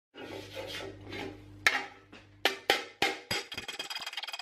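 Hand-held steel slapper striking sheet steel laid over a steel plate: a few separate sharp slaps, then a fast, even run of light metallic taps from about three seconds in.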